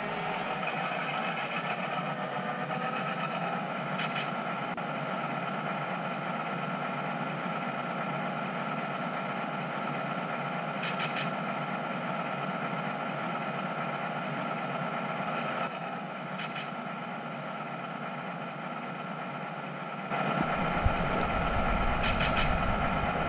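Model train running on the layout: a steady motor and engine hum with a held tone and a few faint clicks. About 20 seconds in it turns louder, with a deep rumble added as the train gets moving.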